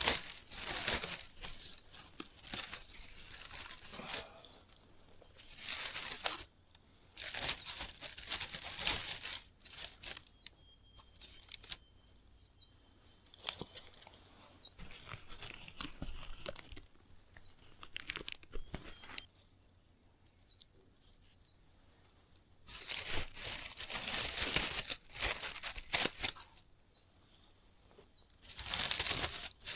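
Repeated bursts of rustling and crinkling, loudest near the start and again near the end. In the quieter stretches between, small birds give many short, high, falling chirps.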